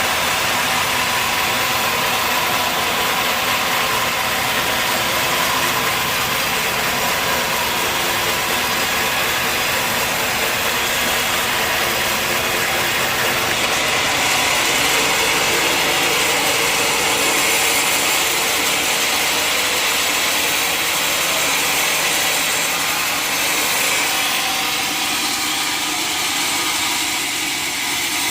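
Sawmill machinery running steadily, a continuous mechanical hum with a hissing edge.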